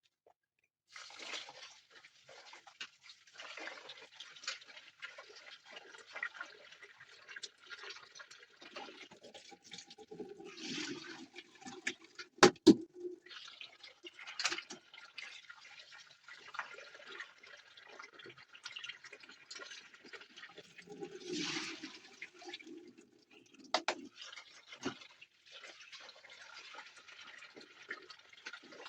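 Water splashing and trickling in irregular spells, as in washing or pouring in a basin, with two sharp knocks, one about halfway through and one near the end.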